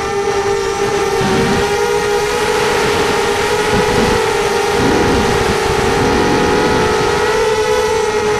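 Racing quadcopter's brushless motors whining steadily, several close tones that waver slightly together as the throttle shifts, with a rough rumble underneath.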